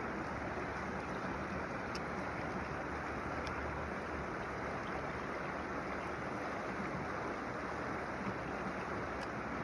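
Creek water running, a steady even rush with a few faint ticks over it.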